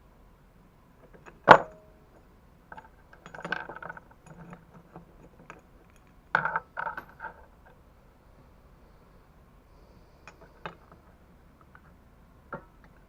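Metal tools and parts clinking and knocking as they are handled: one sharp clank about a second and a half in is the loudest, then two short spells of rattling clinks, and a few light ticks near the end.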